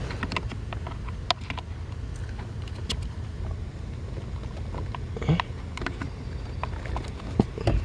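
Small plastic clicks and taps from hands fitting a new turn-signal flasher relay into its socket under a car's dashboard, with a few louder knocks about five seconds in and near the end, over a steady low rumble.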